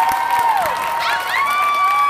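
Audience cheering over applause, with several long high whoops that slide down in pitch as each one ends.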